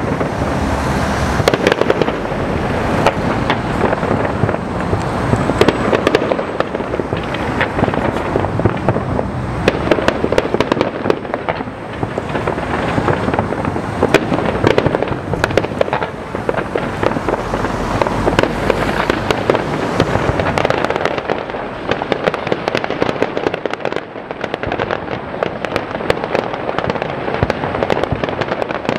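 A large fireworks display: a dense, continuous barrage of shell bursts, bangs and crackling, with sharp reports overlapping throughout.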